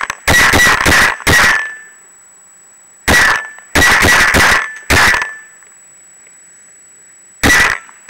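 Paintball gun firing, picked up by a camera mounted on the gun itself: loud, sharp shots with a metallic ring. About four shots come in quick succession, then after a pause about four more, then a single shot near the end.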